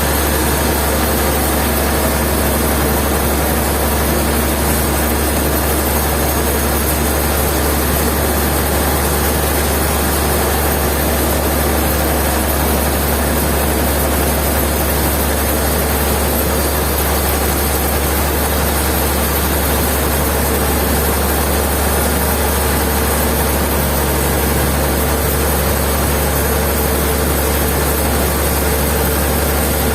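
Heavy machinery running steadily with a strong low hum, unchanging throughout.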